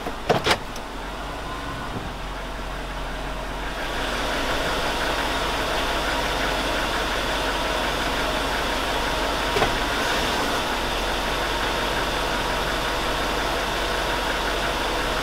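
2002 Chevy Avalanche's 5.3L V8 idling warm with a persistent knocking noise. The owner says it "sure sounds like a rod" but could be lifters. Two sharp clicks come just after the start, and the engine sound gets a little louder about four seconds in.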